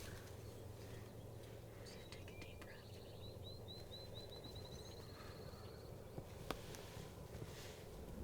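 Quiet field ambience with a small songbird singing one trill of high, quick notes that speed up, a few seconds in. A couple of faint clicks follow near the end.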